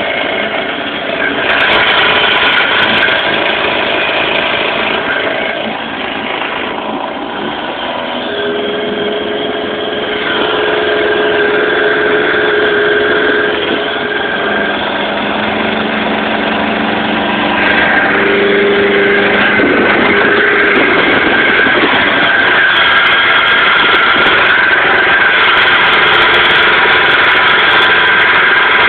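Old 20 hp Evinrude two-stroke outboard motor running, its pitch shifting up and down as the throttle is worked. About two-thirds of the way through it grows louder and then holds steady with the boat under way at speed.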